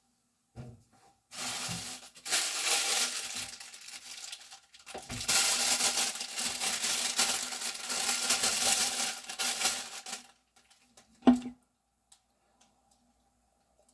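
Kitchen food-preparation noise: two long stretches of scraping, crinkling handling sound, then a single sharp knock near the end.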